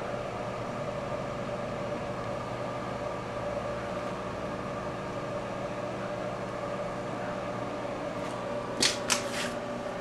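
Sharp Carousel microwave oven running with a compact disc burning inside: a steady hum, with a few sharp snaps about nine seconds in.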